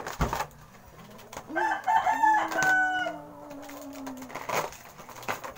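A rooster crowing once, a pitched call of about two seconds that ends on a long held note, with a lower steady tone lingering after it. A few brief crinkles from a foil balloon being handled, near the start and again near the end.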